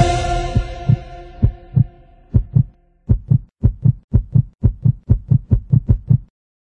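A heartbeat sound effect: deep lub-dub thumps that quicken to about three a second, then stop abruptly about six seconds in. The last chord of the music fades away under the first beats.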